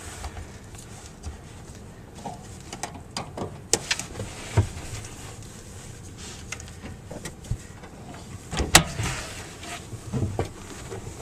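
Wind buffeting the microphone in a low rumble, with scattered knocks and clicks, the sharpest about nine seconds in.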